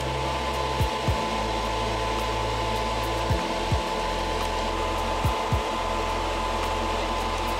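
Steady whoosh of a hobby spray booth's extractor fan, with background music's kick drum beating in pairs about every two seconds.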